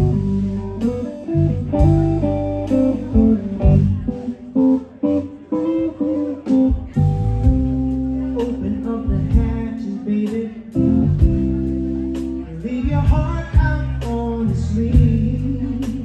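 Live blues band playing a slow number: a Telecaster-style electric guitar over electric bass and drums.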